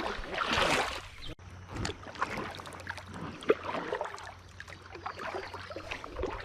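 Water splashing and sloshing around a kayak, loudest in the first second, then lighter lapping with scattered sharp knocks and clicks.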